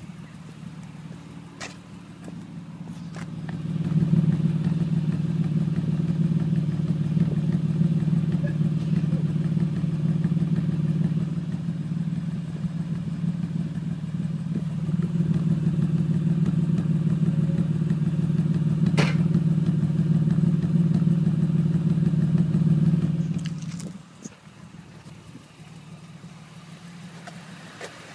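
2006 Honda Accord's 3.0-litre V6 idling with a misfire: a steady low hum that gets louder about four seconds in and drops back near the end.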